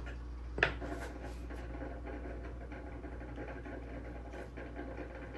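Crumbled ground beef sprinkled by hand onto a plate of chips and shredded cheese, a light patter and rustle of small bits landing, with one sharp click about half a second in.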